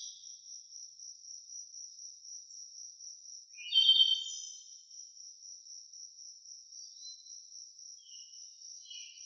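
A cricket-like insect trilling high and steady in an even pulse, with a bird singing one loud short song phrase about four seconds in and a few faint chirps near the end.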